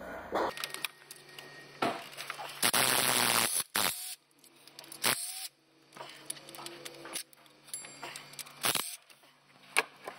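Cordless DeWalt driver spinning out 13 mm water pump bolts: one burst of about a second, then two shorter bursts later on. Sharp metal clicks of the socket and bolts come in between.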